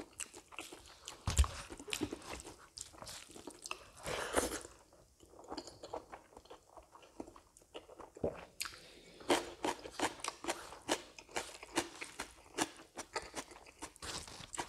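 Close-miked eating sounds: chewing with crisp crunches and wet mouth clicks, the crunching coming thick and fast from about the middle on, as raw red onion is bitten and chewed with hand-eaten rice.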